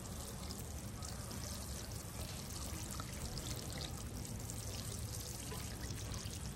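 Water sprinkling steadily from a watering can's rose onto loose potting soil in a plastic planter tray, a continuous hiss of many drops as freshly planted bulbs are soaked.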